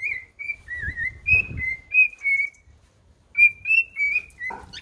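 Cockatiel whistling a tune: a string of short, clear whistled notes, about three a second, in two phrases with a pause of under a second about halfway through.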